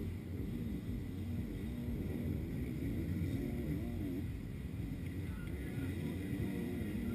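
Motocross dirt bike engines revving up and down in the distance, their pitch rising and falling every second or so as the bikes run the track.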